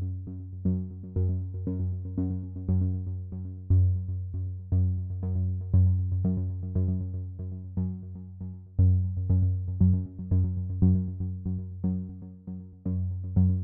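Electronic background music: synthesizer notes struck in a steady pulse of about two a second over a low held bass.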